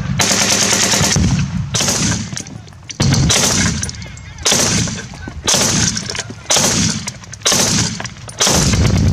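Loud bursts of automatic gunfire, about eight in a row roughly a second apart. Each is a dense rattle of shots with an echoing tail.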